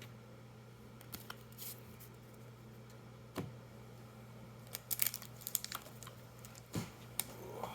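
Foil booster-pack wrapper crinkling and tearing as a Magic card pack is opened, in scattered sharp crackles with a dense cluster about five seconds in, over a steady low room hum.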